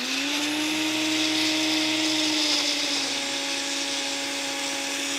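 Countertop blender motor running, pureeing grapes, almond flour and vegetables into a smooth gazpacho. It comes up to speed right at the start, then holds a steady whine over a churning rush.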